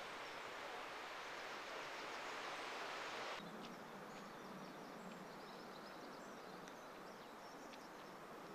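Faint outdoor ambience: a steady hiss that stops abruptly about three seconds in, giving way to a quieter background with a low hum and faint bird chirps.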